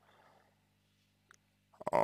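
A low, faint steady hum, then near the end a few mouth clicks and a noisy intake of breath just before speaking resumes.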